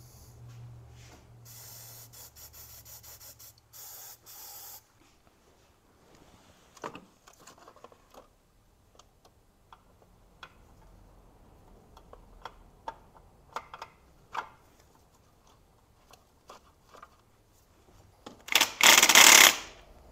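Rubbing and scraping, then scattered sharp clicks of hand work on a plastic dipstick tube and its fittings in a car engine bay. Near the end comes a loud hiss of about a second, a spray from a can.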